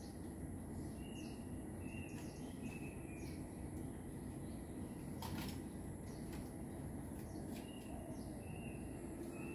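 Steady low background hum with a bird calling in two runs of short repeated chirps, over a thin steady high tone; one sharp click about halfway through.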